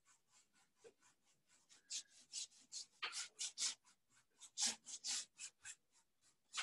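Paintbrush bristles scrubbing acrylic paint back and forth across a canvas in quick strokes, about four a second, blending the colour in.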